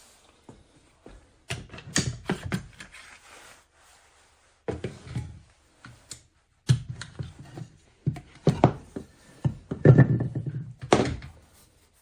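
Bursts of knocks and clatter from objects being handled and set down on a hard surface, coming in clusters, with the loudest run of knocks near the end.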